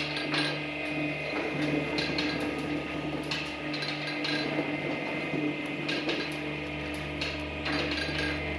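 Twin-shaft industrial shredder running, its motor humming while the interlocking hooked cutters turn and crush a bar of soft soap. Irregular metallic clicks and knocks come from the cutters over the hum.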